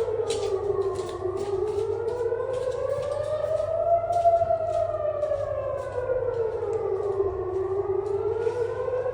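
HPSS32 electronic civil-defence siren wailing a red-alert rocket-attack warning. Its pitch falls, rises slowly for about three seconds, falls again and starts rising near the end, one full cycle roughly every six seconds.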